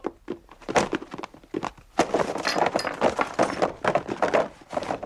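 A stack of boxes knocked over, tumbling and clattering onto a wooden floor: one sharp knock about a second in, then a dense run of thuds and clatter.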